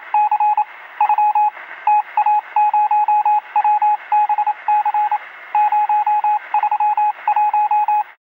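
Morse code beeps: a single tone keyed on and off in quick short and longer pulses, heard through a narrow, radio-like band with hiss behind it. It cuts off suddenly near the end.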